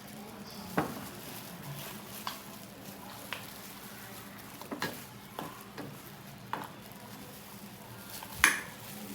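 Kitchen cooking sounds: a steady sizzle with about eight sharp clicks and knocks of utensils against cookware scattered through it, the loudest near the end.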